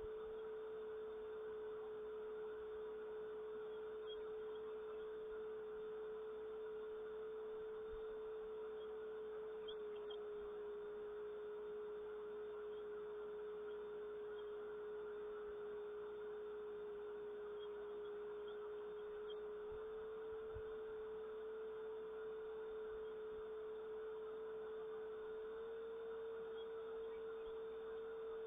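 A steady single humming tone that shifts slightly in pitch a few times, over a faint even hiss.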